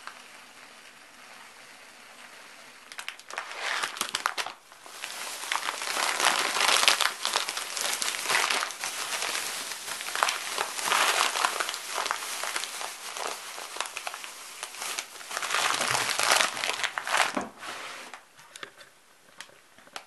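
Thin plastic bag crinkling and rustling as buckwheat groats are poured from it into a ceramic pot, starting about three seconds in and dying away near the end.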